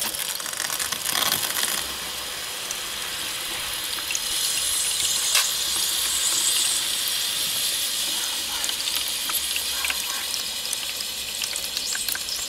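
Water running in through a toilet-cistern float valve into a plastic tub, with the float down and the valve open: a steady hiss of inflow, with one brief click about five seconds in.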